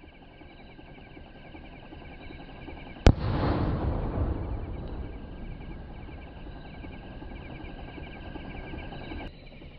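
A Sony Fireworks sky shot aerial shell bursting high overhead with one sharp bang about three seconds in. A rumbling tail follows and fades over about two seconds.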